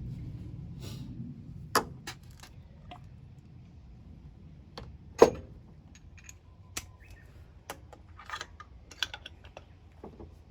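Scattered clicks and light knocks of hand tools and small parts being handled, with a sharper knock about five seconds in and a low rumble that fades out in the first second or two.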